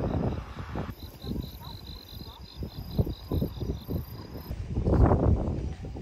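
A cricket chirping in a fast, even run of short pulses, about five a second, for a few seconds. Under it runs a low, uneven rumble that swells louder near the end.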